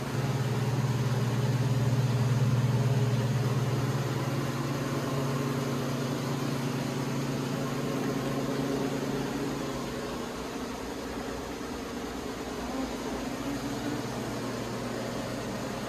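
Steady low mechanical hum of running equipment, strongest for the first ten seconds or so and then easing off.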